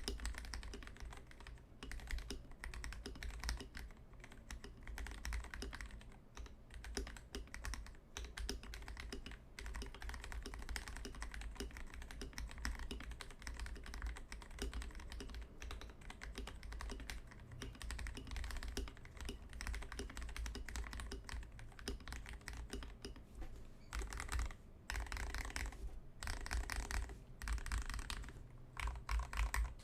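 Continuous typing on a Glorious GMMK Pro mechanical keyboard with a flex-cut brass plate, factory-lubed Gateron Cap Milky Yellow linear switches and XDA PBT keycaps: a steady stream of keystroke clacks, with a few louder, denser runs of keystrokes near the end.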